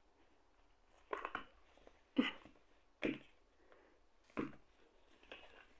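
A small cardboard box holding a mirror cube being handled and turned over in the hands: about five short scrapes and knocks, roughly one a second.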